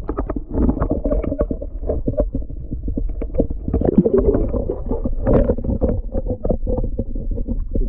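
Muffled underwater sound of sea water surging around a submerged camera, a dull low rumble with many small knocks and clicks.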